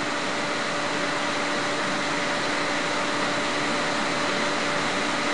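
Steady background hiss with a faint constant hum underneath. Nothing changes in it and no separate event stands out.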